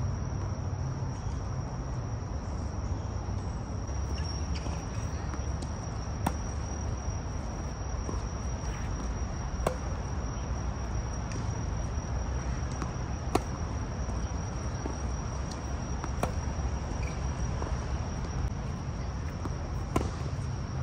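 Tennis balls struck by rackets in a rally, a sharp pock about every three to four seconds with fainter hits between, over a steady high buzz of insects and a low rumble.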